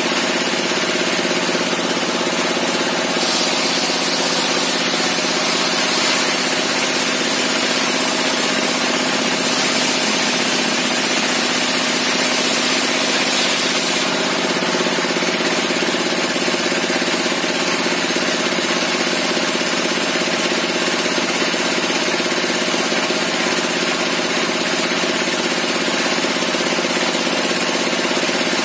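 Homemade table-mounted circular sawmill saw running steadily with a constant machine hum. Its blade rips lengthwise through a log slab from about three seconds in until about halfway, adding a high hiss, then spins on without load.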